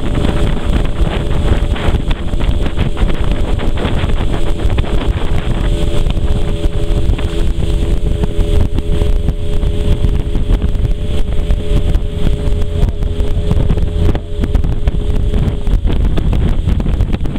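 Outboard motor of an aluminium river motorboat running steadily under way, with water rushing past the hull and wind buffeting the microphone. The engine note changes near the end.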